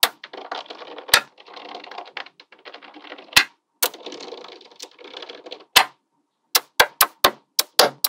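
Small neodymium magnetic balls clicking and rattling: a dense crackle as strands of balls roll and fold against each other, broken by a few loud snaps, then a quick run of separate sharp clicks near the end as balls snap into place one after another.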